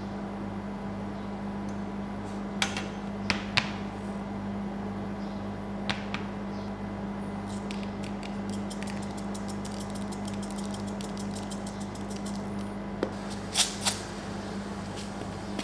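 Steady low hum of the rolled-ice-cream cold plate's refrigeration unit, with a few sharp clicks of metal tongs and plastic containers. From about halfway through, a rapid patter of small ticks runs for some five seconds as sprinkles are shaken from a plastic shaker bottle onto the ice cream rolls.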